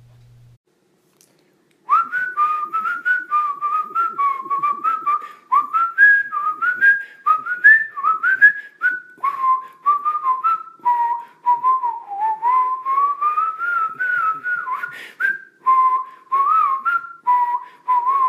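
A whistled melody over a steady percussive beat, starting about two seconds in after a brief near silence.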